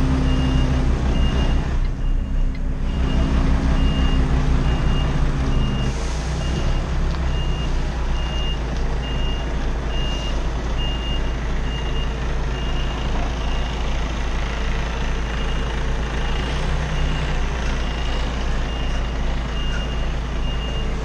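Truck's reversing alarm sounding a steady high beep, a little faster than once a second, over the truck's diesel engine running as it backs up. The engine note drops about six seconds in.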